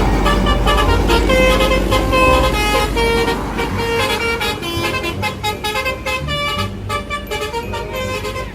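Multi-tone "telolet" bus horn playing a tune, its notes changing every fraction of a second, over a heavy vehicle's engine rumble that fades after about three seconds.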